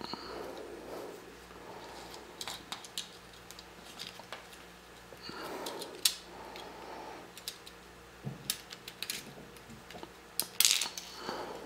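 Small clicks, scraping and rustling of plastic and metal parts handled by hand as coil springs and a plunger are fitted into a cheap plastic airsoft pistol's frame. There is a sharp click about six seconds in and a quick run of louder clicks near the end.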